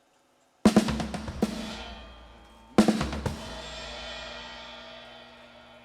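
Drum kit played in two quick runs of hits, the first about half a second in and the second about three seconds in, each ending in a cymbal crash that rings out and fades slowly.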